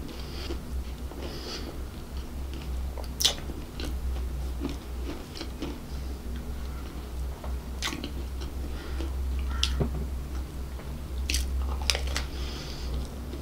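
Close-miked chewing and biting into a creamy chicken and mushroom pie, its flaky pastry crust giving several sharp crunches, the loudest about three seconds in, over a steady low hum.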